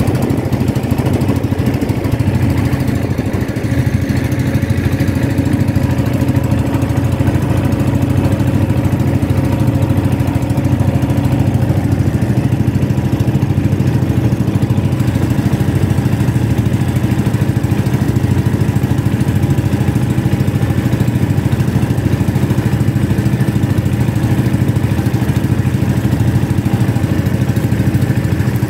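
Small engine of a motorized outrigger boat running steadily under way, an even, loud drone.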